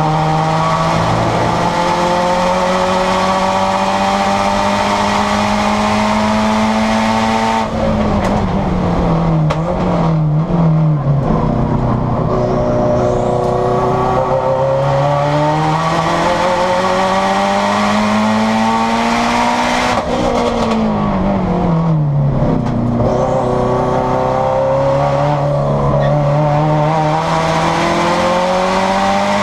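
Turbocharged Subaru STI race car's engine at full throttle, heard from inside the stripped, caged cabin. The pitch climbs steadily through the gears and falls away twice, about 8 and 21 seconds in, before pulling up again.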